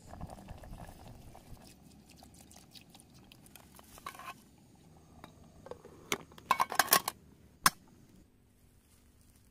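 Metal spoon clicking and scraping against an aluminium mess tin, with a low bubbling of a pot on the boil in the first two seconds. There is a short run of clicks about four seconds in, a busier cluster of clinks between six and seven seconds, and one sharp click just before eight seconds.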